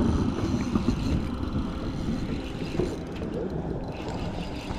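Wind buffeting the microphone in a low, uneven rumble.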